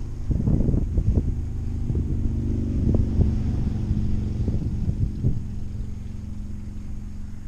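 Wind buffeting the microphone of a camera riding on a moving bicycle: a gusty low rumble with a faint steady hum underneath, easing after about five seconds.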